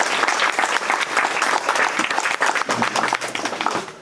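Audience applauding, dense clapping that dies away near the end.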